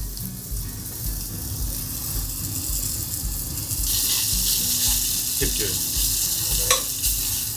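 Floured lamb cubes sizzling in oil in a stainless steel frying pan as they are seared to brown them, the sizzle growing louder about four seconds in as more pieces go in and are turned. A few metal clinks of the utensil against the pan near the end, over a low thud about twice a second.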